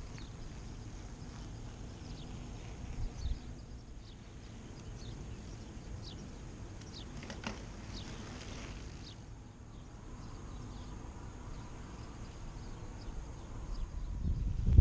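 Open-air ambience: a low, uneven rumble with a few short, high bird chirps about halfway through; the rumble grows louder near the end.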